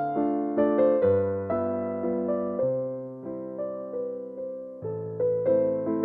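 Background piano music: gentle, slow notes, each struck and left to fade.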